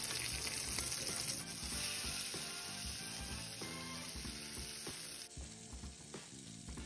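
Asparagus sizzling in butter in a frying pan over medium-high heat, a steady hiss.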